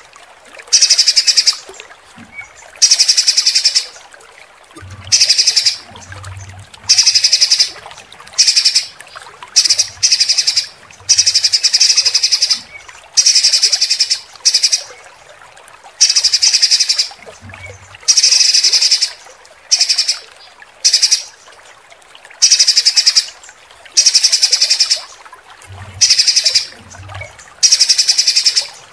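Songbird repeating short, harsh, high rattling trills every second or so. These are the 'tembakan kasar' (rough shot) phrases used in masteran recordings to train competition songbirds. Running water hisses faintly underneath.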